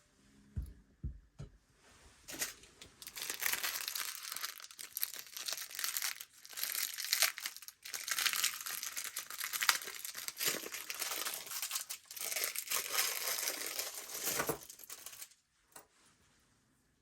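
Packaging crinkling and tearing as a boxed model is unwrapped, preceded by a few soft handling knocks. The crinkling starts about two seconds in and stops a couple of seconds before the end.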